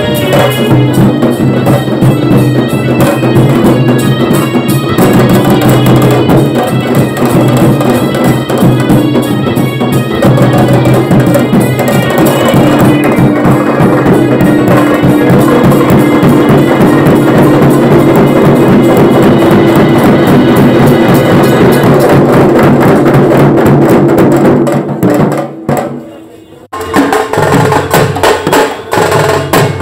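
Bengali wedding band party playing loud music with drums driving it, recorded on a phone mic. The music drops out briefly near the end, then starts again.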